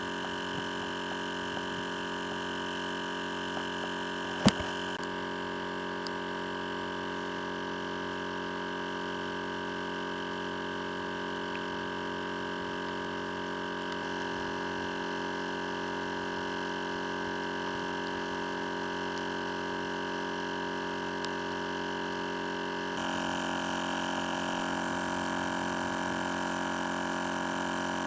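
Electric air pump running steadily, inflating a chamber of an inflatable boat, with one sharp click about four and a half seconds in and a slight change in its tone about 23 seconds in.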